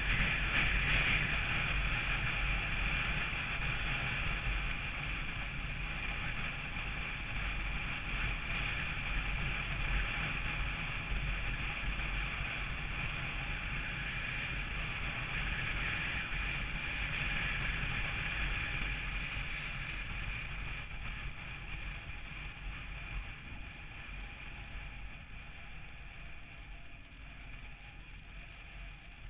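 Steady wind rush and road noise from a vehicle driving at speed, picked up by a vehicle-mounted camera's microphone, with a low rumble underneath; it grows gradually quieter over the last ten seconds or so.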